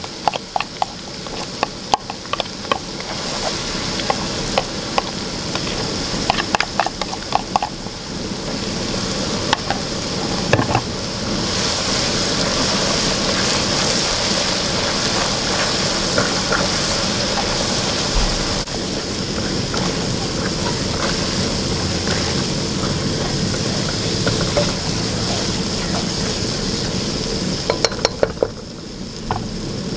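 Curry paste frying in hot oil in a wok, sizzling while a spatula stirs it, with clicks and scrapes of stirring for the first ten seconds or so. From about eleven seconds in the sizzle grows louder and steadier.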